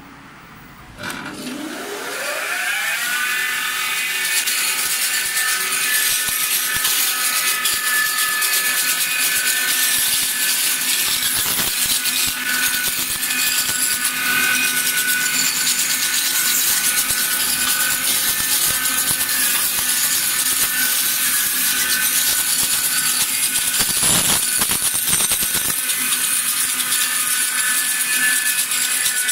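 SPG-1 single-stick sanding and polishing machine starting up. About a second in its electric motor starts and spins up with a rising whine, then the machine runs steadily with a high whine and hiss from its abrasive belt drums and feed rollers. A brief louder burst of noise comes near the end.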